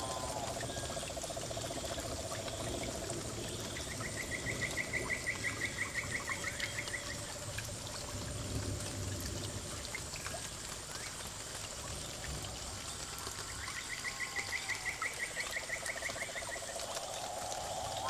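Water trickling steadily from a small paludarium waterfall. A frog trills twice over it, a rapid pulsing trill of about three seconds each time, about four seconds in and again about fourteen seconds in.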